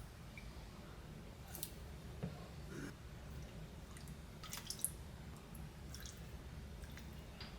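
Faint scattered clicks and small handling noises over a low steady hum.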